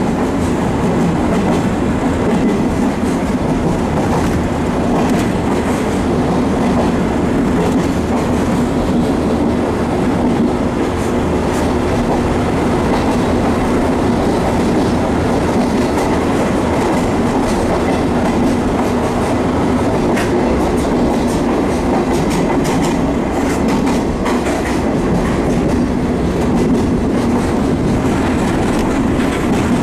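Passenger train running through a rock tunnel, heard from an open-air coach: a steady, loud rumble of wheels on rail with scattered sharp clicks.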